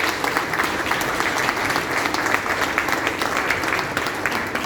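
Congregation applauding: many people clapping steadily and densely.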